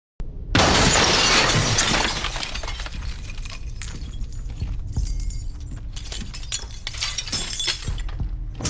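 A window pane smashing about half a second in, loudest at the crash. Glass shards then tinkle and clink as they fall and settle for several seconds.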